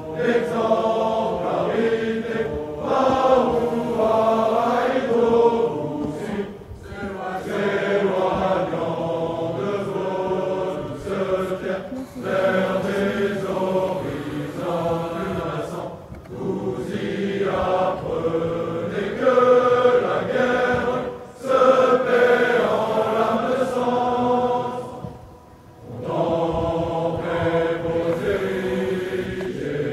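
A large group of officer cadets singing an ode a cappella, in long phrases with short breaks between them.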